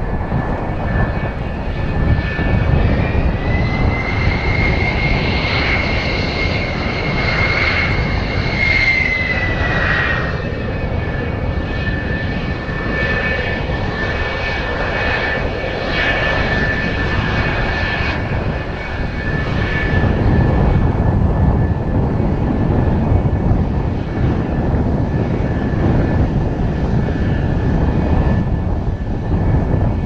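F-4EJ Kai Phantom II's twin J79 turbojets whining as the jet taxis. The whine rises in pitch about three seconds in and settles back down around ten seconds. Gusty wind rumbles on the microphone underneath.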